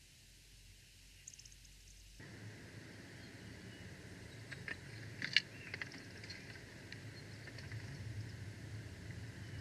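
A steady low rumble and hiss, like wind on an outdoor microphone, comes in abruptly about two seconds in. Around the middle come a few short high chirps and clicks, which are the loudest sounds.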